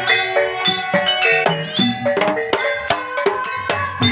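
Live Javanese gamelan playing jaranan campursari music, amplified through a PA system: kendang hand drums beating a quick rhythm under metallophones and gongs striking stepped, ringing notes.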